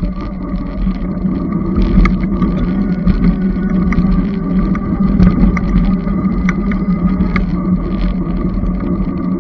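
Steady wind and road noise picked up by a bike-mounted camera while riding a Magnum Premium e-bike, with a continuous low hum running underneath.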